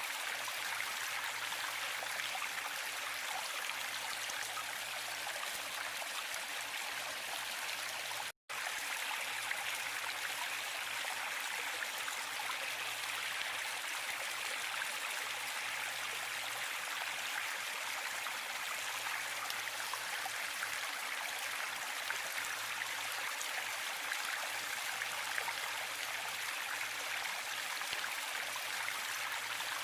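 Waterfall: a steady, even rush of falling water with little bass, broken once by a split-second dropout to silence about eight seconds in.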